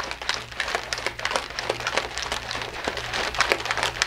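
A Blender Bottle shaker being shaken hard by hand to mix coffee into hot water, with rapid, irregular rattling and clicking from its wire whisk ball and the liquid sloshing inside.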